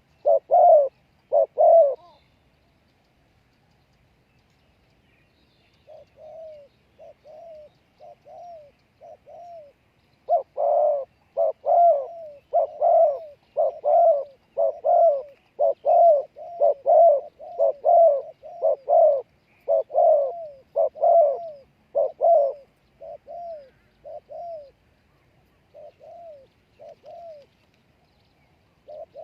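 Spotted dove cooing in repeated phrases, the call of a decoy bird luring wild doves. Loud coos at the start, a few seconds' pause, then quieter coos, a long loud run of coos in the middle, and fainter ones again near the end.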